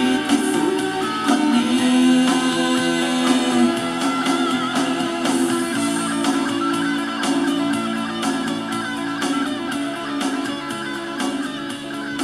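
Guitar-led music playing through the speakers of an Aiwa CDS-A190 portable CD/radio/cassette player.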